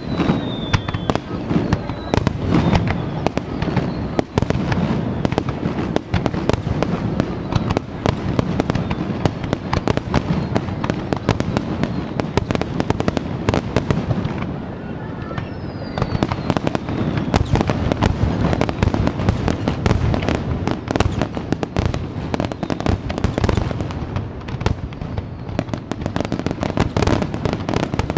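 Fireworks display: a dense, rapid crackle of many shells bursting, over low rumbling booms. A whistle falling in pitch is heard near the start and again about halfway through.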